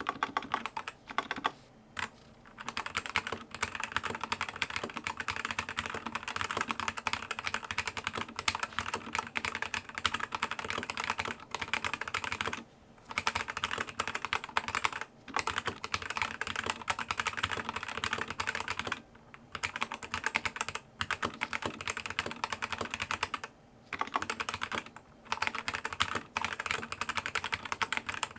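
Fast, continuous typing on a Zi You Lang K68 mechanical keyboard fitted with red (linear) switches: a dense clatter of key clicks, broken by a few short pauses.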